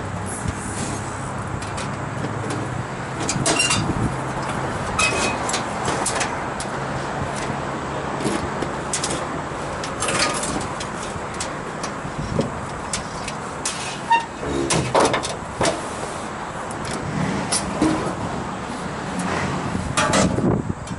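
Scattered knocks and clanks of hand work on a rooftop refrigeration unit being dismantled. A steady low hum underneath fades out about seven seconds in.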